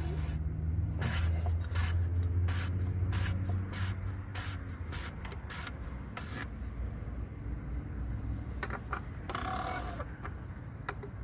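Plastic oil filter housing cap being screwed back down onto the housing, a string of short scrapes and clicks at an uneven pace, over a steady low hum.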